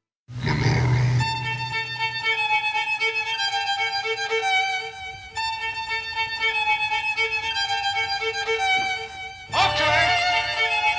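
Music: a violin melody of held notes over a steady repeated low note, the instrumental intro of a hip-hop track, with a brief swell at the start and a short sweep in pitch about nine and a half seconds in.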